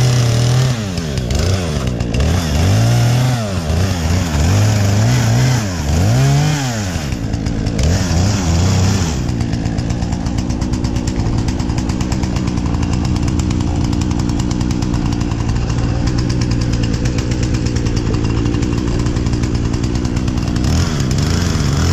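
Two-stroke gasoline chainsaw cutting through a log, the engine revving up and falling back several times over about eight seconds until the cut is through. It then idles with a fast, even pulsing and revs up again near the end.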